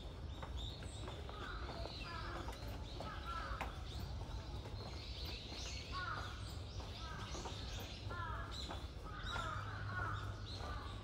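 Crows cawing repeatedly, short falling calls one after another, over a steady low rumble of outdoor background noise.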